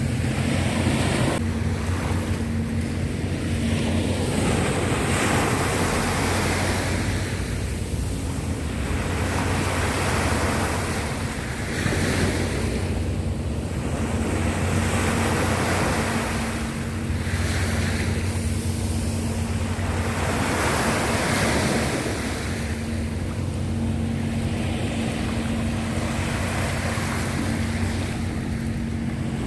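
Sea waves washing in over and over, surging every three or four seconds, with a steady low hum underneath.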